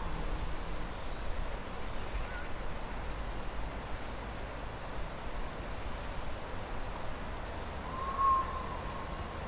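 Low, steady ambient rumble with a faint, rapid high ticking through most of it and a short, faint tone about eight seconds in.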